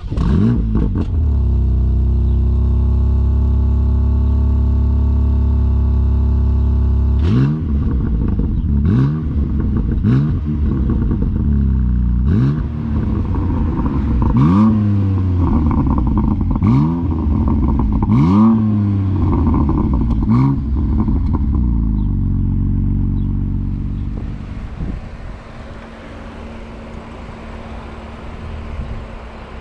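BMW M4 Competition's 3.0-litre twin-turbo inline-six starting up with a brief rev flare, then idling steadily. Partway through it is blipped about eight times, each rev rising and falling back to idle. Near the end the engine note falls away, leaving a quieter steady hum.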